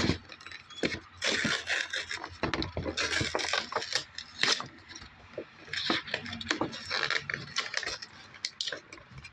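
Cardboard toy boxes and their plastic packaging being handled and pulled open: irregular rustles and scrapes with sharp clicks.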